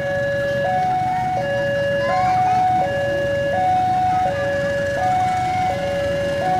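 Railway level-crossing warning alarm sounding: an electronic two-tone signal switching back and forth between a high and a low tone a little faster than once a second, warning that a train is coming. A low rumble lies underneath.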